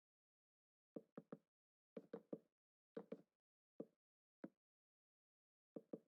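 A series of short, sharp knocks or taps, coming in quick groups of two or three with single ones between, separated by silence.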